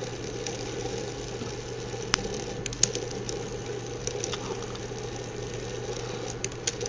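Small fischertechnik electric motor running steadily, switched by pulse-width modulation through an NPN transistor, with a few faint clicks.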